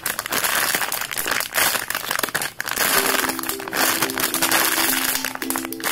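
Clear plastic bag crinkling and crackling as the foam squishy toy sealed inside it is squeezed and handled. A simple background music melody comes in about halfway through.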